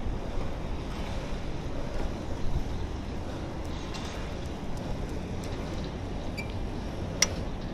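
Steady wind rush on the microphone and road noise from a moving bike ride, with no engine tone, and one sharp click near the end.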